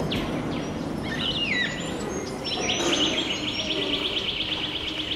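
Bird calls: a couple of short high calls sliding downward, then a fast, even trill of repeated high notes, about eight a second, lasting about three seconds.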